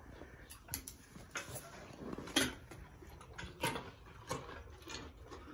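A horse crunching a whole raw carrot, irregular sharp crunches as it bites and chews, the loudest about two and a half seconds in.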